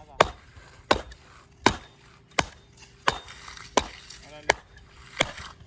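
Tamper pounding stamp mats into fresh concrete to press in the pattern: sharp, evenly paced strikes, about one every 0.7 seconds, eight in all.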